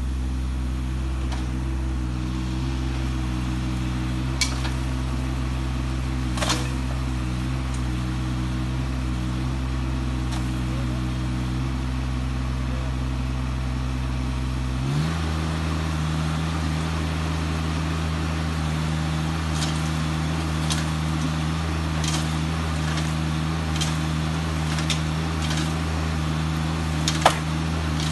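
Compact tractor engine running steadily, its pitch stepping up abruptly about halfway through and holding there while the front loader pushes into a brush pile. A few sharp cracks ride over it, the loudest near the end.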